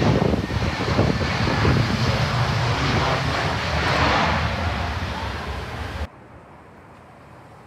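An easyJet airliner's jet engines running loud as it moves along the runway, mixed with heavy wind buffeting on the microphone. The sound cuts off abruptly about six seconds in, leaving only a faint hiss.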